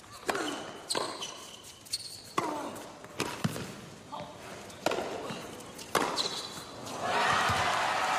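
Tennis rally on an indoor hard court: sharp racket-on-ball hits and ball bounces, roughly one a second, with short squeaks of shoes on the court between them. About seven seconds in, the point ends and the crowd breaks into loud applause.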